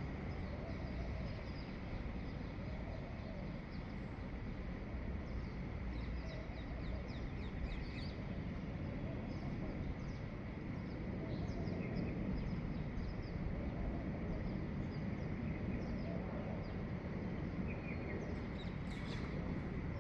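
Dawn chorus of birds: many short chirps and calls from several birds over steady low background noise.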